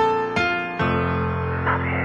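Electric piano playing a few struck chords that ring and fade, then a sustained chord, in a song's intro.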